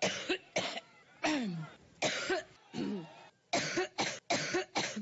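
A woman coughing repeatedly over a telephone line: a fit of about eight short coughs in quick succession, some with a falling voiced tone.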